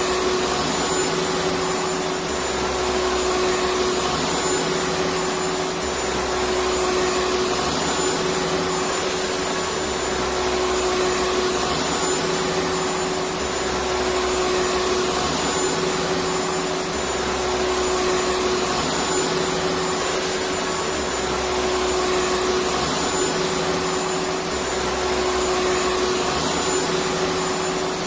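Vacuum cleaner running steadily: an even rushing noise with one steady hum note through it.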